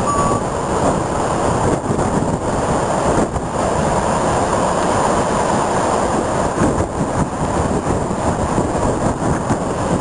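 Storm surf from a rough sea breaking on the beach: a continuous loud rush of crashing waves, with wind buffeting the microphone.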